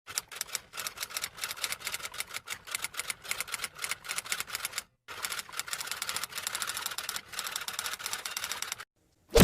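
Typewriter typing sound effect: rapid, irregular keystroke clacks in two runs split by a brief pause, followed near the end by a short, loud burst.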